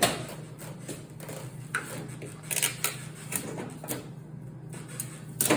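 Knocks and scraping from hands working on a new refrigerator while its protective packing tape is pulled off, over a steady low hum. The sharpest knocks come right at the start and near the end.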